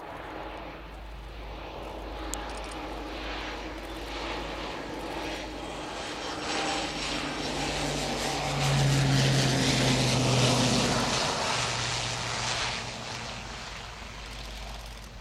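Dornier 228-212 twin turboprop landing, its Garrett TPE331 engines and propellers growing louder as it passes close by about nine seconds in. The propeller tone drops in pitch as it goes past, then the sound fades.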